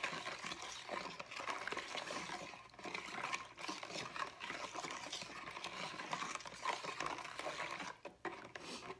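A spoon stirring a thin soy-sauce marinade in a plastic mixing bowl, the liquid swishing and the spoon scraping the bottom as the sugar is worked in to dissolve it. The stirring stops about a second before the end.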